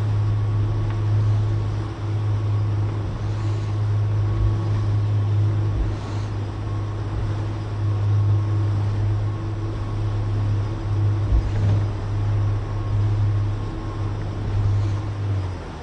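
Motorboat engine running steadily under way, a constant low hum with a fainter steady whine above it, over the rush of water and wind. Near the end the engine note drops away.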